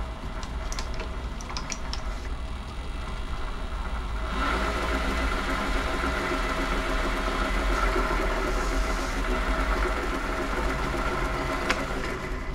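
WM210V variable-speed bench lathe running, its spindle turning a threaded rod in the four-jaw chuck, with a Delrin lead nut held on the spinning screw. About four seconds in the running sound grows louder, with a stronger whine.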